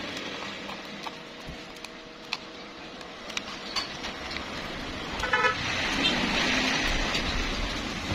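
Light plastic clicks as a phone's back cover and inner plastic cover are pried and unclipped. Street traffic runs underneath, with a short vehicle horn toot about five seconds in, and the traffic noise grows louder after it.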